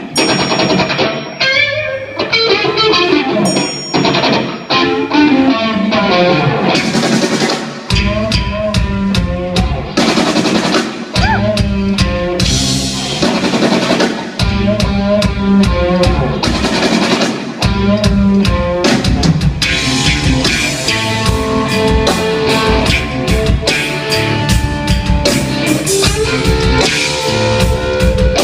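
Rock band playing live: an electric guitar line alone, then drums and bass come in about eight seconds in, playing a stop-start riff with brief breaks, and the full band drives on to the end.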